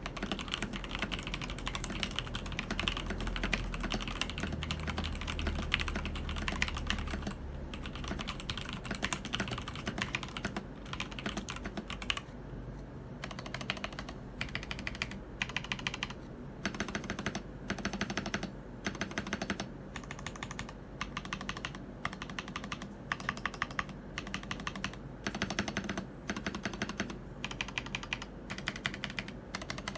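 Fast typing on a Keydous NJ80 mechanical keyboard with TTC Speed Silver linear switches. The clacks come in a dense stream at first, then, from about twelve seconds in, in short runs separated by brief pauses.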